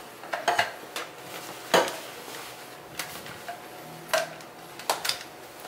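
Handling noise as a Unix hair dryer is pulled out of its cloth bag: about five sharp knocks and clicks of its hard plastic body and wrapped cord, spread over several seconds, with a little rustling of the fabric.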